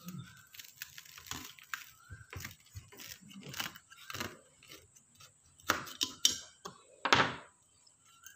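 Knife sawing through a crisp toasted sandwich on a steel plate: a run of crunchy crackles and scrapes, with the loudest crunches about six and seven seconds in.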